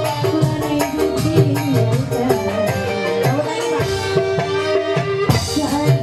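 Live band music played loudly over a sound system: electronic keyboard over a steady hand-drum beat, with a woman singing into a microphone.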